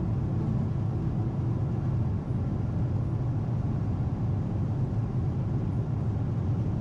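Steady low rumble of cabin noise inside a Boeing 777-300ER cruising at altitude: engine and airflow noise.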